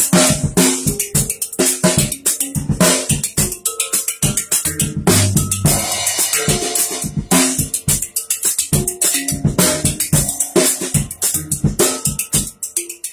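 A drum kit played with sticks in a busy groove of snare, bass drum and cymbal strokes, mixed with ringing pitched notes from a handpan built into the kit.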